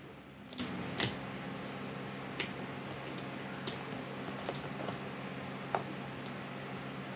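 Scattered light clicks and taps of hands handling and pressing the plastic drinking straws of a model house roof, about ten at irregular intervals, over a steady low hum that comes in about half a second in.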